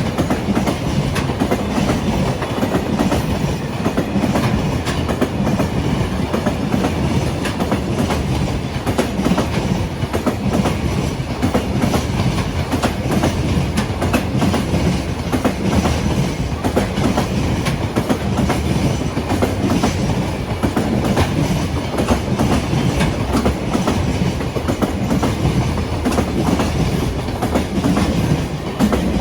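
Freight train of container wagons rolling past close by, its wheels clicking over the rail joints in a steady clickety-clack.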